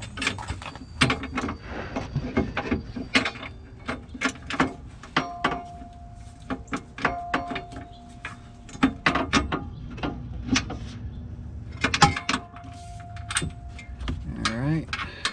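Steel K-member brace clinking and knocking against a Mustang's underbody as it is held up by hand and a mounting bolt is worked into its hole, in many irregular sharp metallic clicks and knocks.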